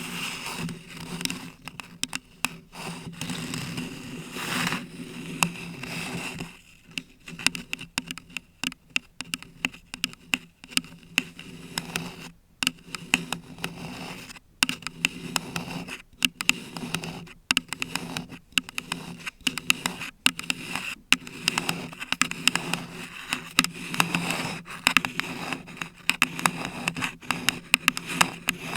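Long artificial nails scratching and tapping on a paper cup and a bare condenser microphone, close to the mic: a dense scratchy rasp full of sharp clicks.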